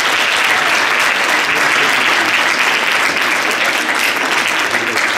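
Audience applauding, a loud, dense and steady clapping.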